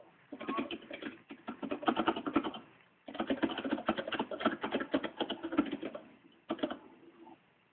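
Rapid wet licking and smacking of a pet's tongue grooming a dog's fur, in two long bouts of quick ticks, the second starting about three seconds in, with a short burst near the end.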